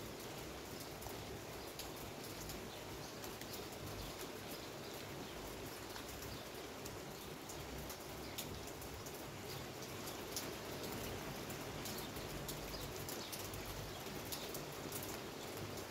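Steady rain falling, with many short sharp ticks of drops striking hard surfaces close by.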